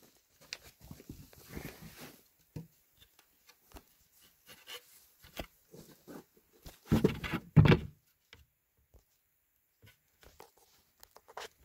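Handling noise from a phone being moved about by hand: scattered faint rustles and clicks, with two louder dull bumps about seven seconds in.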